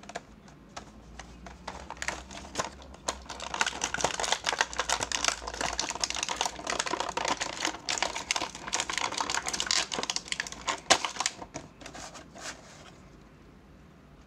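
Clear plastic packaging crinkling and crackling as an action figure is worked out of its plastic bag and tray: a dense run of rapid clicks and crackles that thickens after a few seconds, then thins out and stops near the end.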